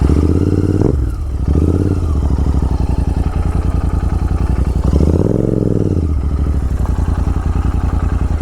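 Royal Enfield Continental GT 650's parallel-twin engine, breathing through an aftermarket Red Rooster exhaust, running at low revs. The revs rise and fall three times, the longest swell about five seconds in.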